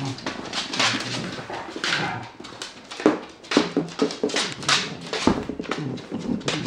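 An English bulldog making noises while playing with toys, mixed with a busy run of short knocks and scuffles from toys and paws on a wooden floor.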